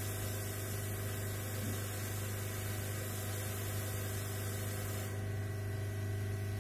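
Hot air rework station blowing steadily, heating a MOSFET on a motherboard so it can be soldered in place: a constant fan hum with airy hiss. The hiss drops off about five seconds in as the nozzle is lifted away.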